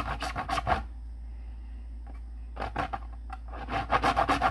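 A small piece of purple wax candle being grated on a metal grater: quick, even rasping strokes, about six a second. They stop just under a second in, come back as a few single strokes, and resume at full speed near the end.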